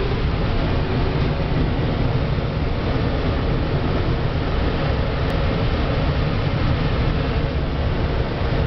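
Steady rush of air over an unpowered SGS 2-33 glider in flight, heard inside the cockpit, with no engine note.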